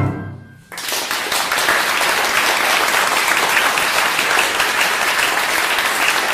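The final cello and piano chord dying away, then audience applause breaking out just under a second in and going on steadily.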